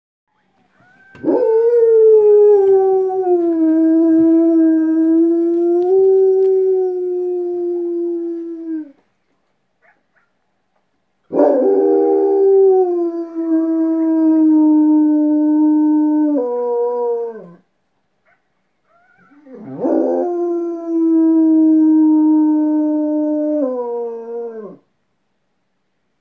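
A dog howling in answer to coyotes: three long howls, each several seconds long, holding a steady pitch and sliding down at the end, with short pauses between.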